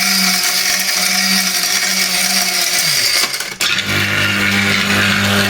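Electric spice grinder motor running at full speed, its blades pulverising a chunk of brick into powder. About three seconds in the motor's pitch sags and the sound briefly dips, then it runs on steadily at a lower pitch.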